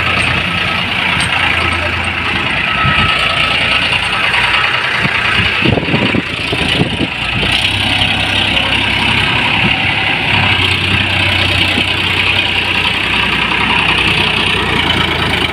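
Farmtrac Champion tractor's diesel engine running steadily under load while hauling a fully loaded soil trolley.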